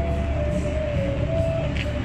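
Background rock music with a guitar melody and a bass line.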